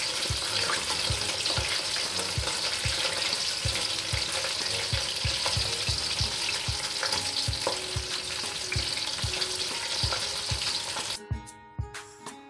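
Battered chicken and vegetable skewers deep-frying in hot oil: a steady sizzle, with a metal spatula moving in the pan as the skewers are turned. About eleven seconds in, the sizzle cuts off and plucked guitar music begins.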